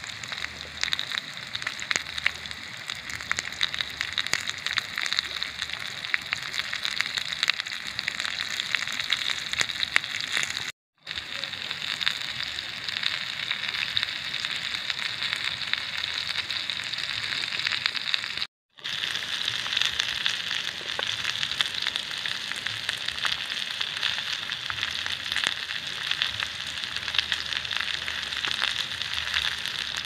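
Sliced potatoes and onions sizzling and crackling in oil in a small frying pan on a portable gas stove. The sizzle is steady apart from two brief drop-outs, about eleven and eighteen seconds in.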